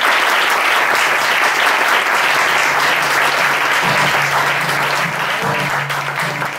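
Audience applauding a live acoustic performance, the clapping thinning slightly toward the end. About two-thirds of the way in, a few low acoustic guitar notes come in under the applause.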